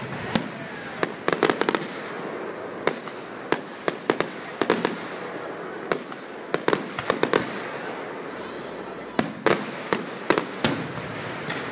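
Aerial fireworks shells bursting overhead: a run of sharp bangs and pops, some single and some in quick clusters, over a steady background hiss.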